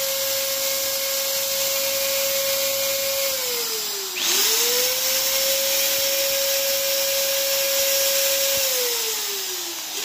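Electric hand drill boring holes into a plywood board, its motor whining at a steady pitch. About three seconds in the trigger is let go and the whine falls as the motor winds down, then it spins straight back up, and it winds down again near the end.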